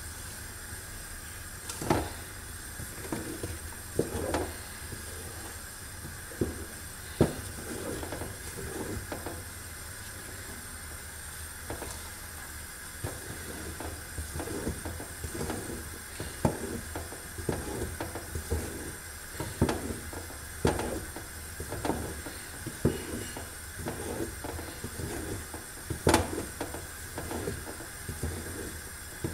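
A wooden spoon stirs a thick sesame-and-hazelnut paste in a metal pot, scraping in an irregular rhythm with occasional sharp knocks against the pot, several of them louder. A steady hiss runs underneath.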